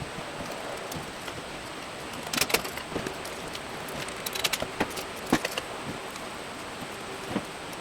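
Small clicks and clinks of electrical wiring parts being handled, in a cluster about two and a half seconds in and a run of them between about four and five and a half seconds, over a steady background hiss.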